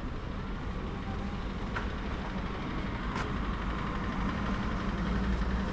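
Street traffic: a motor vehicle's engine running with a steady low hum that slowly grows louder, with a couple of faint clicks.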